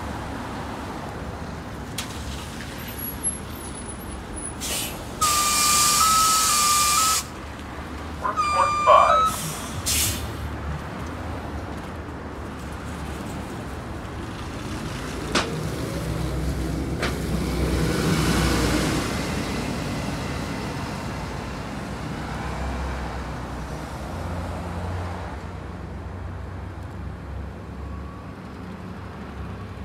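Bee-Line NABI 40-LFW hybrid-electric transit bus at a stop: a loud release of air hiss for about two seconds, about five seconds in, with a steady beeping tone inside it, then a shorter hiss with a wavering tone a moment later. About fifteen seconds in, the bus's drive hum rises as it pulls away and then fades, over passing traffic.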